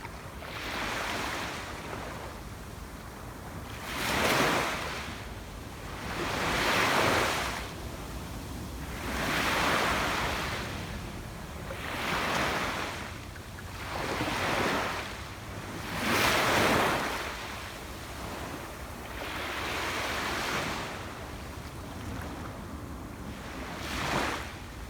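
Sea waves breaking on a beach, each surge of surf swelling and washing back every two to three seconds over a steady low rumble, with some wind noise on the microphone.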